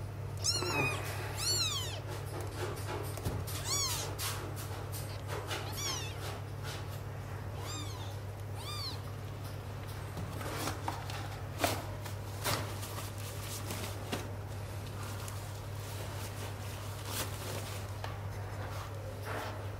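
Six-day-old kittens mewing, about seven thin, high rising-and-falling cries in the first nine seconds as one is lifted from the nest. After that come scattered clicks and rustling from handling a disposable pad, over a steady low hum.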